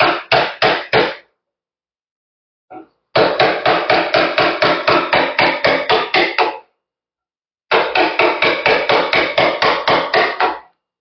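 Mallet striking a chisel in quick, even blows, about four a second, driving it through wood while roughing a convex curve. The strikes come in three runs, with pauses after about a second in and again near the middle.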